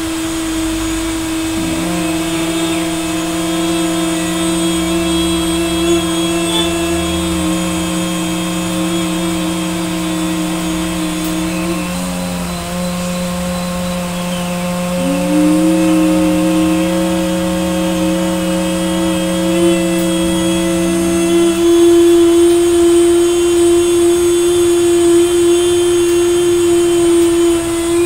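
Two people doing the bhramari 'bee breath' hum with closed mouths: a man's lower steady hum starts about two seconds in and stops about three-quarters of the way through, while a boy's higher steady hum breaks off briefly near the middle and then resumes.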